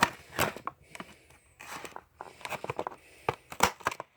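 Scissors snipping into plastic blister packaging on a toy's card, with sharp irregular snips and crinkling of the plastic as it is handled.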